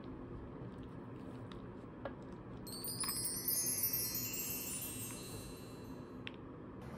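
Wind-chime sound effect: a cascade of bright, high tinkling notes that step downward in pitch, starting near three seconds in and ringing out for about three seconds. A few faint clicks of a wooden spoon against a plastic cup.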